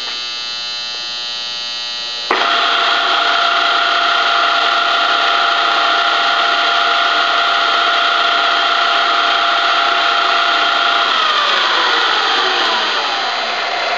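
Ikeda radial arm drill press humming steadily, then about two seconds in a click as the joystick engages the spindle and the geared head comes up to a louder steady running whine. Near the end the whine falls in pitch as the spindle slows.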